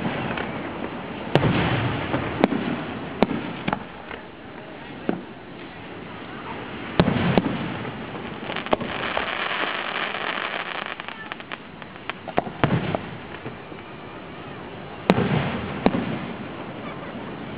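Fireworks display: aerial shells bursting overhead with sharp bangs every second or few, each followed by a short low rumble, the loudest about seven seconds in and near the end.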